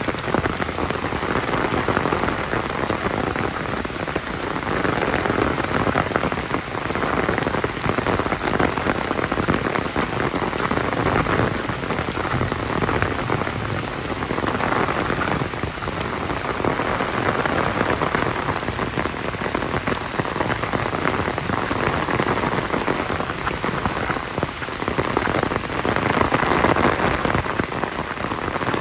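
Steady rain falling, a dense hiss of many drop hits close by, swelling and easing slightly in loudness.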